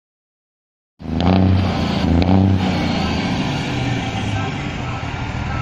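Volvo FH12 460 truck's straight-piped 12-litre six-cylinder diesel engine running, coming in abruptly about a second in. It swells twice in the first couple of seconds, then runs on at an even, steady level.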